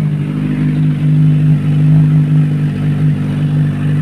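Kawasaki Ninja 1000SX's inline-four engine, with its stock silencer canister removed, running at a steady raised cold-start idle while it warms up.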